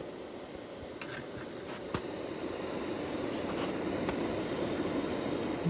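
Pot of burbot and walleye chowder simmering over a stove burner: a steady rushing noise that grows louder, with a single light click about two seconds in.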